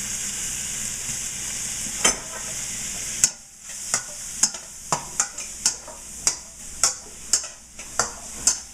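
Shiitake mushrooms, spinach and roast beef sizzling in butter in a hot frying pan. About three seconds in, the hiss drops and a utensil knocks against the pan about twice a second as the food is stirred.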